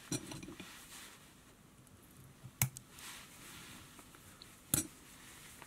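Three sharp small clicks, roughly two seconds apart, from handling of fly-tying thread and tools at the vice, over quiet room tone.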